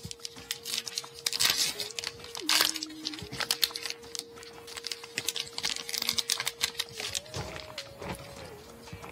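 A trading-card pack wrapper being torn open and crumpled by hand: a run of sharp crinkling and tearing crackles, loudest in the first few seconds, then quieter rustling as the cards are handled.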